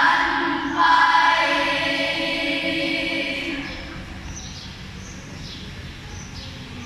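Children's choir in two parts singing a short note, then holding a long final chord that dies away about three and a half seconds in.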